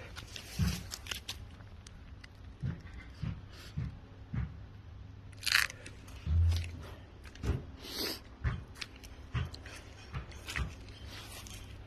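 Irregular low thumps, roughly one every half second to a second, with light crunching and clicks: footsteps and handling noise from someone walking with a phone. A couple of louder scraping sounds come about halfway through.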